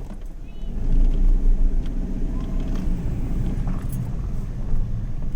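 A BMW E36 running with a low rumble that gets louder about a second in and holds. It is the weird noise the owner hears when he starts to drive, with the car vibrating all the time, even with the clutch pressed.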